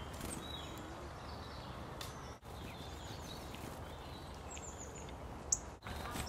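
Steady outdoor background noise with faint, scattered high chirps from small wild birds, and one sharp high tick near the end.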